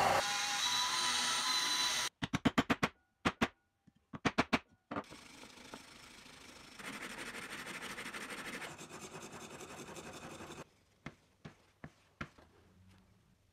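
A disc sander's motor running for about two seconds, then a quick run of sharp taps in small groups. After that a steel chisel is rubbed back and forth flat on a sandpaper disc in a steady scraping, and near the end a few light clicks follow.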